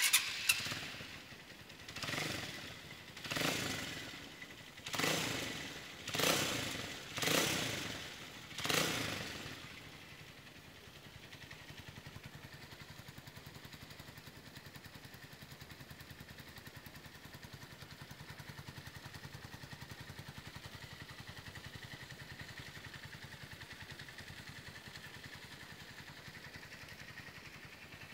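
Mirage 150 motorcycle engine through a freshly fitted Roncar aftermarket sport exhaust, revved in six quick blips about a second apart, then settling about ten seconds in to a steady idle. The exhaust note is much deeper and fuller than stock.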